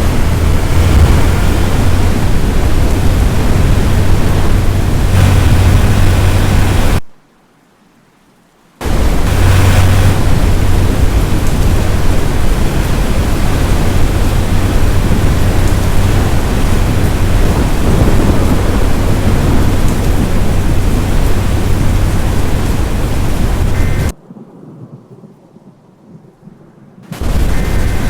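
Loud storm noise of wind and rain buffeting the microphone, a dense rumbling hiss that cuts off suddenly twice for a couple of seconds.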